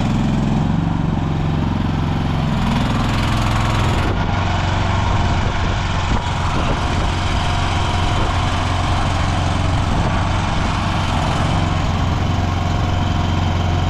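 Mini excavator engine running steadily. Its note shifts and wavers over the first four seconds, then holds even.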